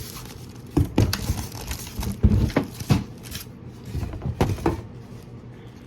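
A run of knocks and thumps with rustling as the sewing machine's parts and their packaging are handled and set down, the loudest knock a little over two seconds in.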